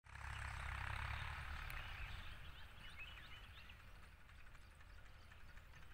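Faint outdoor field ambience: a hiss and low rumble that ease off over the first two seconds, with a few faint bird chirps near the middle.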